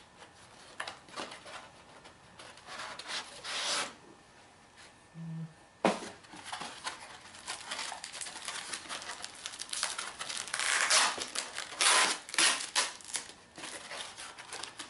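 Cardboard light-bulb box being torn open by hand, crinkling and tearing, then a white foam packing insert pulled out and handled, with a sharp snap about six seconds in and the loudest rustling near the end.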